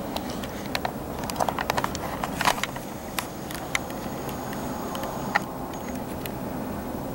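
Handling noise from a handheld camera: a scattered run of small clicks and taps, most of them in the first five seconds, over a steady low hum.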